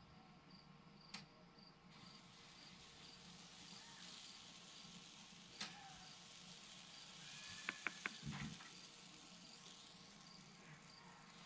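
Near silence: a faint high chirp repeating evenly about twice a second, like a cricket, with a few small sharp clicks and a soft knock about eight seconds in.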